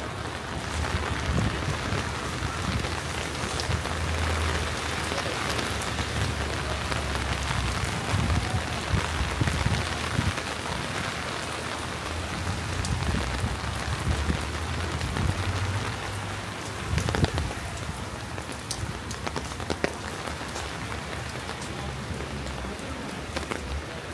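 Steady rain falling on hard surfaces: an even hiss with scattered sharp drip ticks, over a low rumble. The drips are loudest about two-thirds of the way through.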